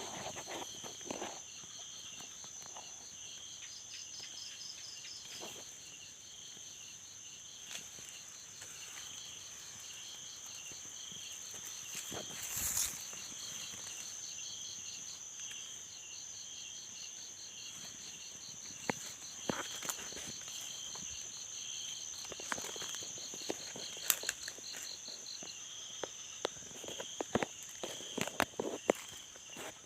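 Night insects: a steady high-pitched trill with crickets chirping in rapid, regular pulses underneath. In the second half come scattered footsteps and small rustling clicks.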